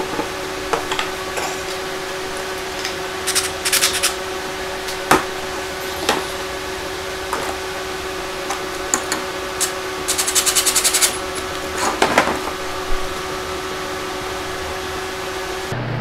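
Pine frame strips knocking and scraping on a plastic folding table while a cordless drill briefly drives screws to join the frame corners, over a steady hum. About ten seconds in there is a quick run of rapid, evenly spaced clicks lasting about a second.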